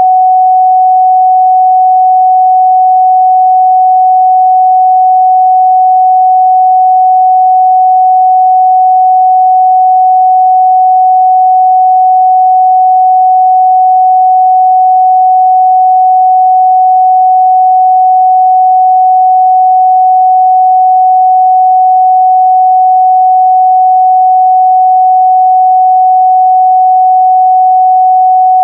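A steady, loud 744 Hz sine-wave test tone, one pure pitch held without change.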